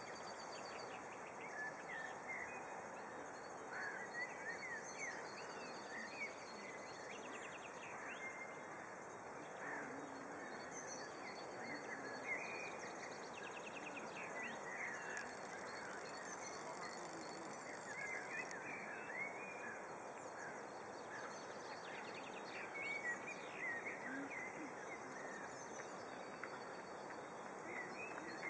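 Outdoor ambience of birds chirping and singing in the trees: many short calls scattered throughout, over a steady background hiss.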